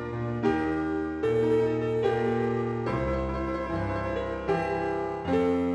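Background piano music playing slow chords, changing about once a second.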